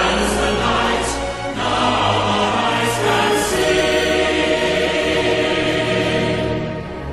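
Music: a choir singing slow, long-held notes over a musical backing, dying away near the end.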